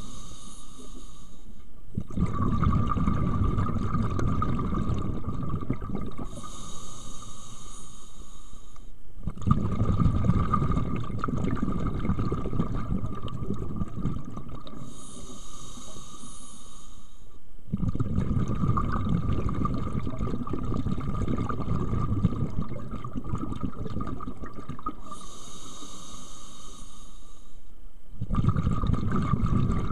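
Scuba diver breathing through a regulator underwater: each inhale is a high hiss of about two to three seconds, alternating with longer stretches of low bubbling from the exhaled air, about four breaths in all.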